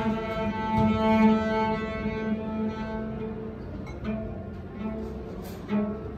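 Solo cello bowed live: a long held note that fades after about three seconds, then a couple of short, quieter bowed notes.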